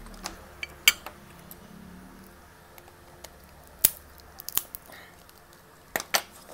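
Crab leg shell being cut and cracked with a metal tool: a few sharp, separate cracks and clicks, about a second in, near four seconds, and a close pair near the end.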